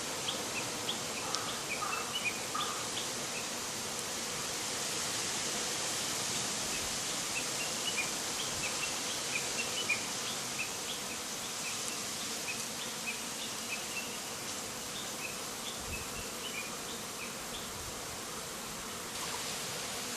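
Japanese honeybees buzzing as they fly in numbers around the hive entrance, restless behaviour that the keeper puts down to bonfire smoke drifting over the hive. Under the buzzing is a steady hiss, with many short high chirps scattered throughout.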